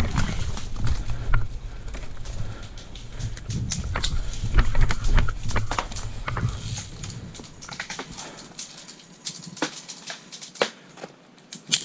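Scattered sharp clicks and snaps at irregular intervals, over a low rumble of wind or handling that dies away about eight seconds in.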